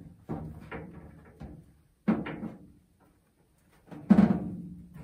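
Sheet-metal parts-washer cabinet knocked as its painted metal mesh grate is worked loose: three sudden knocks about two seconds apart, each ringing and dying away.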